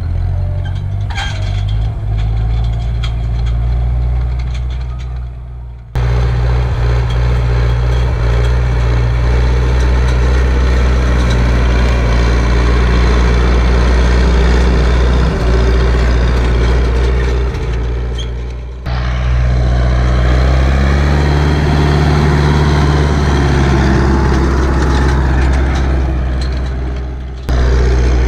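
Turbocharged Ursus C-360 tractor's four-cylinder diesel engine running steadily under load while pulling a cultivator through ploughed soil. The sound jumps abruptly in level about 6, 19 and 27 seconds in.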